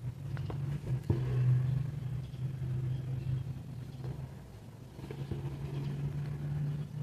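A low, steady engine-like motor hum. It drops away briefly midway and then comes back, with a few faint light clicks.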